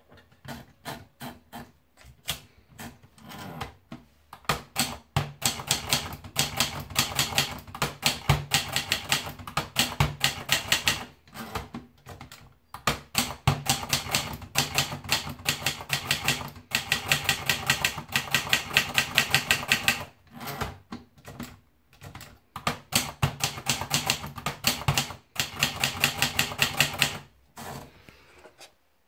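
Adler Tippa portable typewriter being typed on: a few single keystrokes at first, then fast runs of key strikes broken by short pauses, stopping a little before the end.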